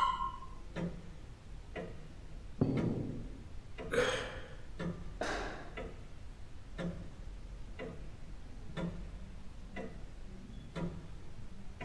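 A clock ticking slowly and evenly, about once a second, with a few louder soft swishes between about three and six seconds in.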